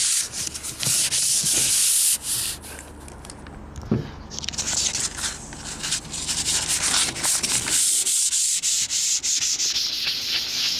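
Sandpaper rubbed by hand back and forth over the primered steel hood of a car, a scratchy hiss in quick strokes. It pauses briefly about two seconds in, with a light knock near four seconds, then goes on steadily.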